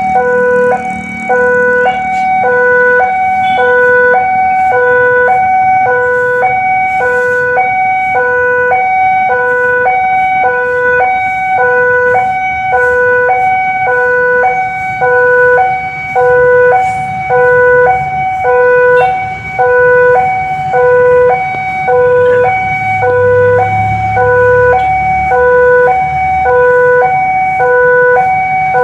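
Railway level-crossing warning alarm sounding for an approaching train: an electronic signal alternating steadily between a lower and a higher note, about one pair a second, with road traffic rumbling underneath.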